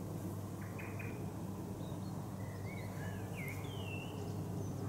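Steady low rumble of a Boeing 777 freighter flying high overhead, with small birds chirping and whistling several times over it, mostly in the second half.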